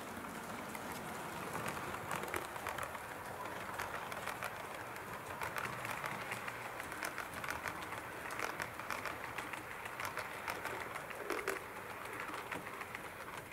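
HO scale model train, an electric locomotive hauling a rake of passenger coaches, running along the track: a steady rumble with a rapid, irregular clicking of wheels over the rail joints, louder as the coaches pass close in the middle.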